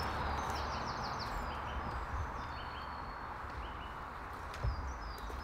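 Birds chirping in runs of short high notes over a steady low rumble, with one soft thump near the end.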